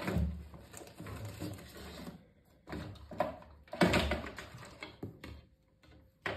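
Cardboard shipping box being handled and shifted about: scraping and rustling, with a knock at the start and a louder knock about four seconds in.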